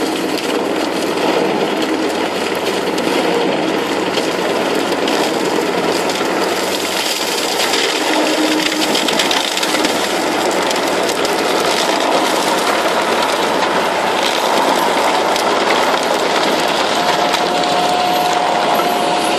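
Tracked forestry mulcher working brush: the engine runs under load while the rotor grinds and shreds shrubs and scrub into chips and dust, a steady, dense noise. A steady pitched whine comes in near the end.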